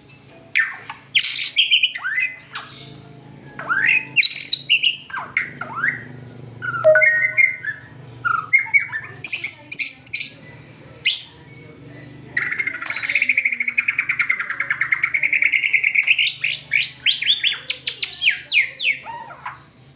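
White-rumped shama (murai batu) singing a fast, varied song of sweeping whistles and sharp chattering notes. About twelve seconds in it breaks into a rapid trill lasting a few seconds, then a quick series of falling notes.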